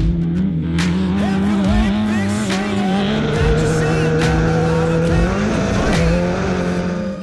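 Off-road race car engine running hard at steady high revs, its pitch dipping briefly about five and a half seconds in.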